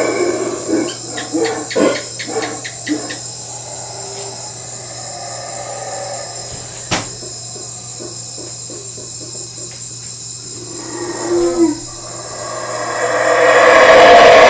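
Night insects, crickets, calling in a continuous high-pitched drone, with scattered clicks in the first few seconds and one sharp click about halfway. A louder rushing sound swells up near the end.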